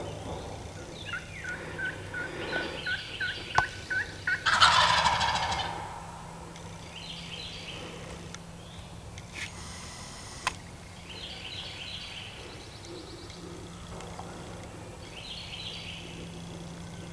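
Wild turkey gobbling: a loud, rattling gobble about four and a half seconds in, followed by fainter gobbles later on. Before it comes a run of evenly spaced yelps.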